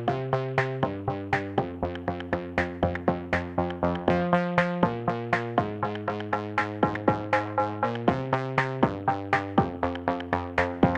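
Background music: an electronic track of quick, evenly spaced plucked synth notes, about four a second, over held chords.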